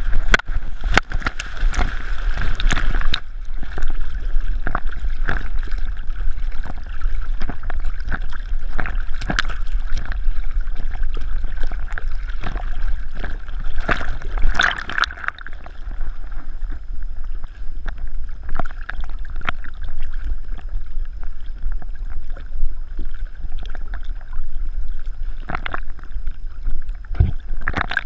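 A swimming dog's paddling stirring water into irregular splashing and sloshing, picked up by a camera in a waterproof case strapped to the dog's back, with bursts of heavier splashing about a second in and again near the middle.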